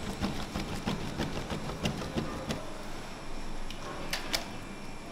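Lahmacun meat topping being scraped across a tray and scooped by hand into a stainless steel pan: scattered clicks, knocks and scrapes of scraper, mixture and metal, with two sharp clicks near the end. A low hum runs underneath and stops about halfway.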